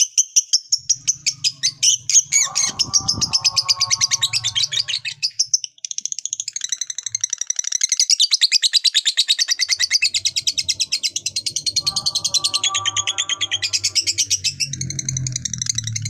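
Lovebird singing its long ngekek: a rapid, high chattering trill of evenly repeated notes. It breaks off briefly about six seconds in and starts again.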